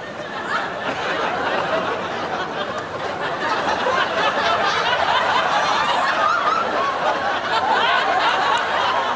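Many people laughing and chattering at once, growing a little louder from about three seconds in.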